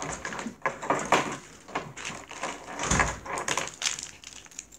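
Irregular rustling and knocking handling noises, with a heavier low thump about three seconds in.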